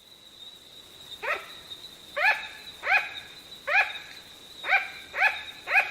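A small animal calling in short, rising yelps, seven of them about every half second to second, over a steady high-pitched tone.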